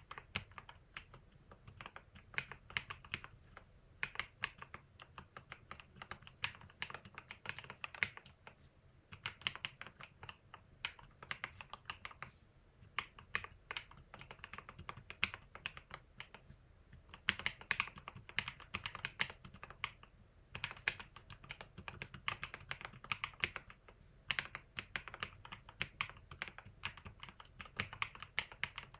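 Typing on a YUNZII KC68 mechanical keyboard with lubed Holy Panda 67g tactile switches, PBT SA keycaps, O-rings and foam and tape mods: rapid runs of muted keystrokes in bursts of several seconds with brief pauses between.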